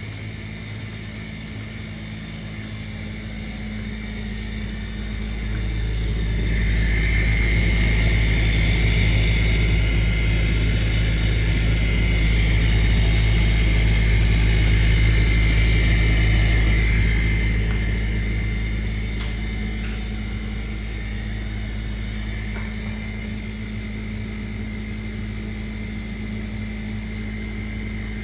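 Maytag dishwasher in its wash cycle making a grinding, vibrating drone. It swells about six seconds in, holds loud for some ten seconds, then eases back to a steadier hum. The noise is sudden and new, and its cause is unknown.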